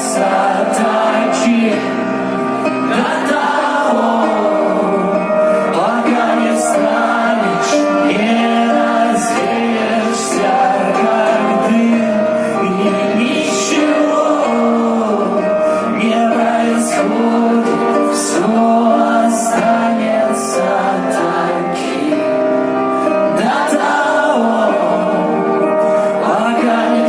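Rock band playing live, loud and steady: sustained guitars and keys under singing, with repeated cymbal crashes.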